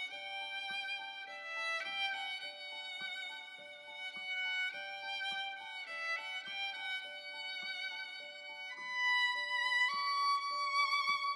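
Music: a violin playing a slow melody with vibrato over a steadily repeated accompanying note.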